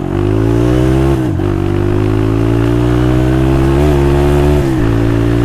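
Motorcycle engine through a cheap aftermarket silencer exhaust, accelerating through the gears: the pitch climbs, drops at an upshift about a second in, climbs again, and drops at a second upshift near the end, then holds steady.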